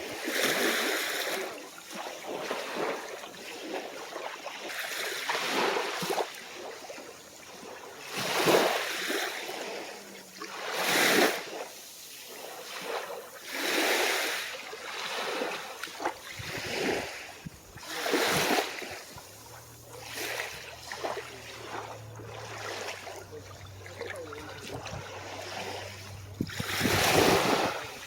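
Small, calm waves washing onto the beach, surging and falling back every few seconds, a few surges louder than the rest.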